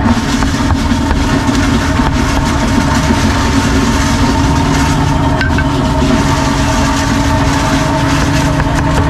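A steady motor drone with a constant hum, loud throughout. A few faint knocks of a cleaver on a wooden chopping block sit beneath it.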